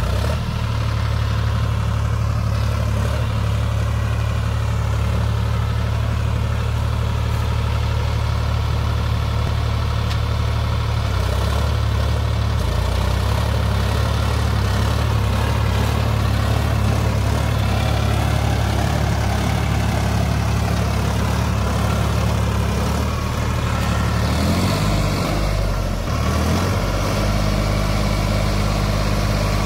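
Sonalika DI 47 RX tractor's diesel engine running steadily under load while it drives a Shaktiman rotavator tilling paddy stubble. The engine note shifts briefly about 25 seconds in, then steadies again.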